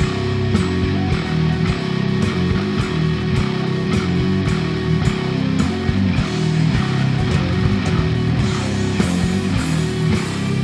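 Heavy rock music: an effects-laden electric bass playing sustained low riffs over a drum kit beating steadily.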